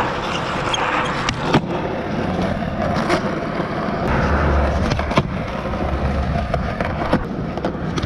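Skateboard wheels rolling over a hard court surface with a steady rumble, broken several times by sharp clacks of the board striking the ground.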